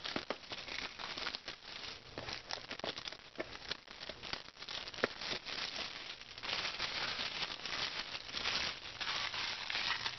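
Plastic shrink wrap crinkling and tearing as it is stripped off a cardboard product box, in a run of small crackles that grows denser and louder about six and a half seconds in.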